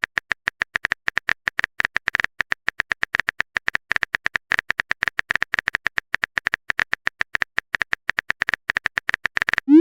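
Keyboard typing sound effect: a rapid, irregular run of sharp key clicks, several a second, as a chat message is typed out. Right at the end a rising swoop begins, the start of a message-alert tone.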